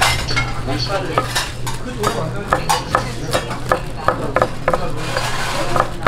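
Kitchen knife chopping boiled pig's head meat on a wooden cutting board: a run of sharp knocks, a few a second at uneven spacing, over a steady low hum.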